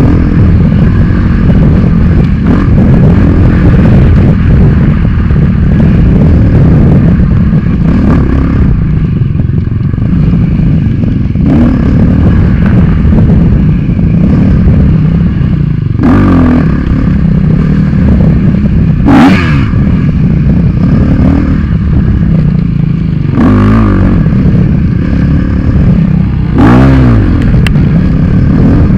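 Dirt bike engine heard from the rider's own helmet camera at race pace, revving up and down without a break, with several quick sharp revs in the second half.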